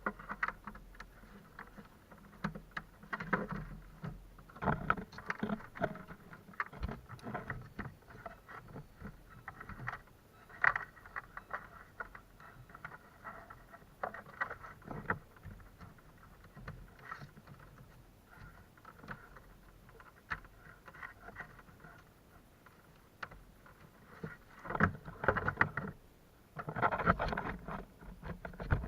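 Irregular handling noises from repair work on a car fuse and relay block: scattered clicks, taps and short scrapes, busiest about 25 seconds in.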